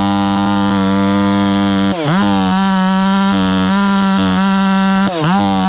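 Chainsaw running at high revs while limbing a felled tree. Its pitch dips sharply and recovers twice, about two seconds in and again near the end.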